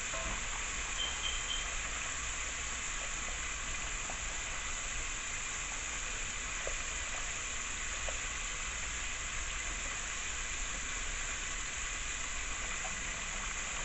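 Chicken wings frying in fresh cooking oil: a steady sizzle with a few faint pops.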